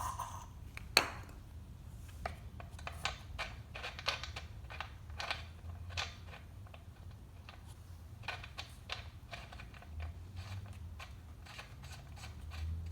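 Irregular small metal clicks and taps of hand tools working on a Shindaiwa T231X trimmer's spark plug, with one sharper knock about a second in.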